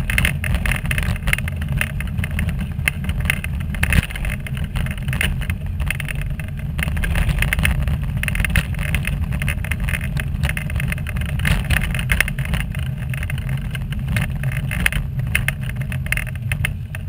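A wheelchair rolling steadily along a path: a continuous low rumble with a constant crackle and rattle over it.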